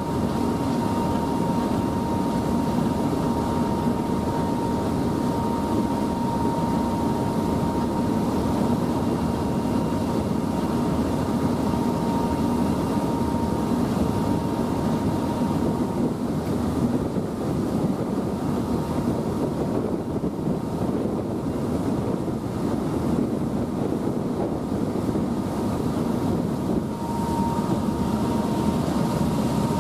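Passenger ferry's engines running steadily at cruising speed: a dense low drone with a thin, steady whine above it.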